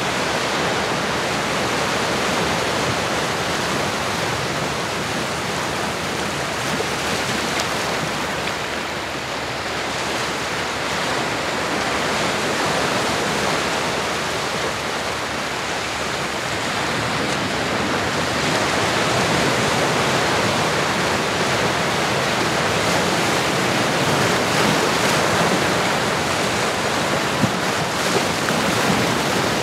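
Ocean surf: a continuous wash of waves, swelling and easing slowly.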